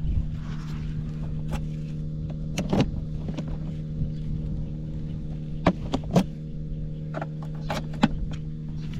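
Honda Cabina 50 scooter's small two-stroke single-cylinder engine idling steadily, with a number of short sharp clicks and taps over it.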